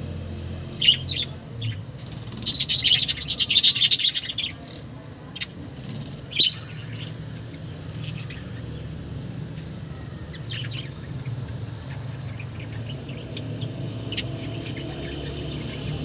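Budgerigars chirping: a few single high chirps, a rapid flurry of chirps about two and a half to four and a half seconds in, then scattered chirps, over a steady low hum.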